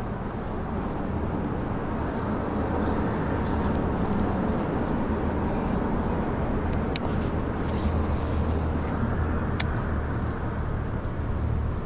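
A motor running steadily with a low hum. Two sharp clicks come about seven seconds in and again about two and a half seconds later.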